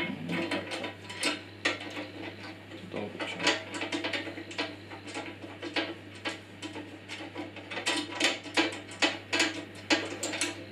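Irregular metallic clicks, taps and rattles of small hardware being handled while a screw is threaded by hand at a bandsaw's table, a few sharper clicks standing out.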